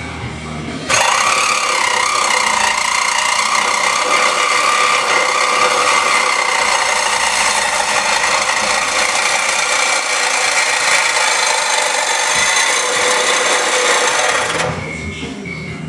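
Electric power tool cutting metal on the truck's underside, running steadily for about fourteen seconds. It starts about a second in and cuts off near the end.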